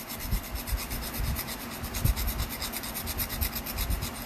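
Small flex-blade knife rubbed quickly back and forth, spine side down, on 220-grit sandpaper glued to a wooden board, about seven scraping strokes a second: the broken tip is being ground back into a point.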